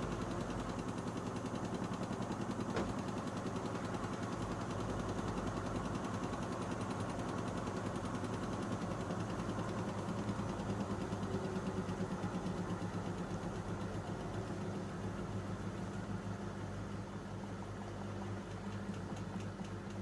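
Panasonic NA-147VB2 washing machine's inverter motor turning the drum: a steady machine hum with a fast, even pulse, getting somewhat quieter near the end.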